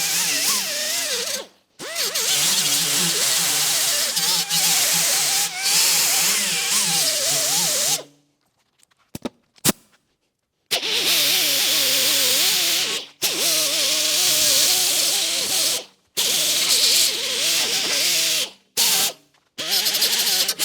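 Angle grinder grinding down welds on steel door patch panels, its whine rising and falling under load, in several separate runs that cut off abruptly.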